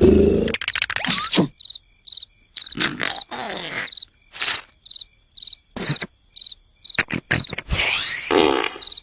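Cricket chirping steadily, about two short chirps a second, with irregular loud rasping noises over it. A rapid clicking that drops in pitch opens it.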